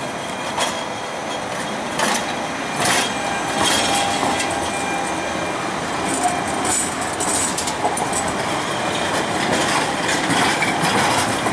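Siemens Duewag articulated tram rolling past on street track, a steady rumbling run with a few sharp knocks from the wheels on the rails.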